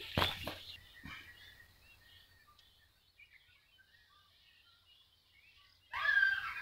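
Faint, scattered bird chirps in the open countryside, after a few sharp knocks in the first second. Near the end a much louder sound with several held pitches cuts in suddenly.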